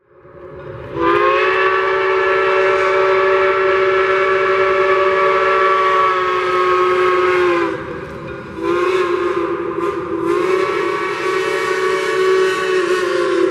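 Norfolk & Western 475's steam whistle, a 12-inch hooter, sounding a chord of several notes in two long blasts: the first held for about seven seconds, then after a short break a second long blast.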